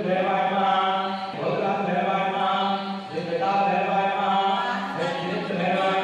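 Mantra chanting: voices intoning in long held phrases, each lasting about a second and a half to two seconds before a short break.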